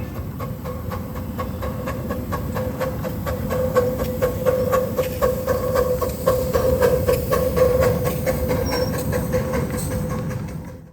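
Train rolling on rails: a steady rumble and hum with rapid, regular clicking, cutting off suddenly at the end.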